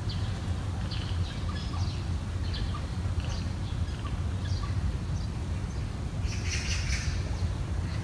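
Wild birds chirping in short, scattered high calls, with a louder cluster of chirps about six and a half seconds in, over a steady low rumble.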